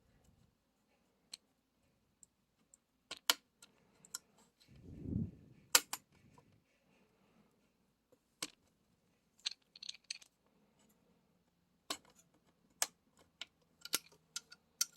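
Small scattered clicks and light taps of hands working on a graphics card's cooler and its small cable connectors, with a soft thump about five seconds in.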